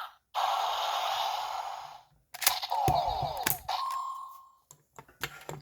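Electronic sound effects from a Gokaiger Mobirates toy: a hissing noise for about two seconds, then falling electronic tones, then a short steady beep, with plastic clicks from handling.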